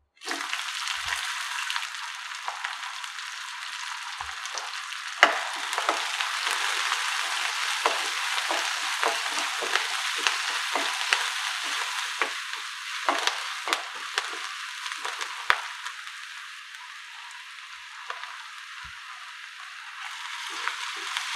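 Chopped onions and green chillies frying in hot oil in a kadai, the sizzle starting abruptly as the onions go in. A wooden spatula stirs them with scattered sharp knocks and scrapes against the pan. The sizzle eases for a few seconds near the end, then picks up again.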